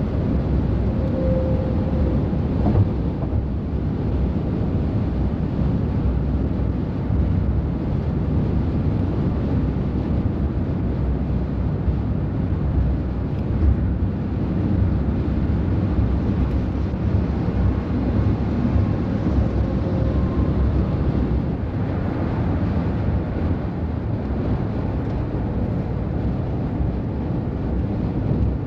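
Road traffic with heavy trucks running: a steady low rumble with no single distinct pass-by standing out.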